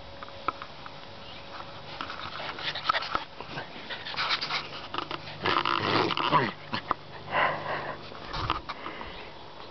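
A yellow Labrador puppy making play noises close to the microphone, in several short bursts.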